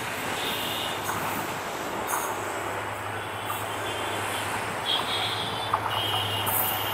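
EMD GT42ACL diesel-electric locomotive hauling a passenger train on approach, its engine giving a steady low drone over rumbling rail noise, with a few brief high-pitched wheel squeals from the curve.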